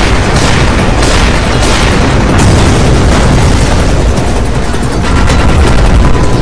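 Battle sound effects: explosions booming and gunfire, with several sharp blasts in the first couple of seconds, then a continuous heavy rumble.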